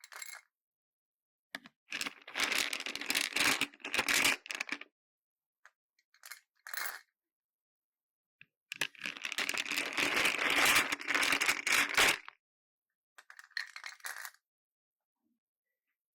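Homemade slime packed with assorted beads being squished and worked, the beads clicking and rattling against each other in bursts, two of them lasting a few seconds, with short silent pauses between.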